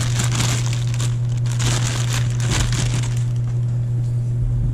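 Clear plastic bag crinkling and rustling as a metal bike-stand clamp is pulled out of it, dying down after about three seconds, over a steady low hum.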